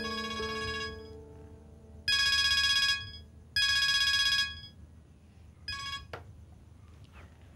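Mobile phone ringing with an electronic trilling ringtone in repeated bursts: two full rings about a second apart, then a short ring about six seconds in that is cut off by a click.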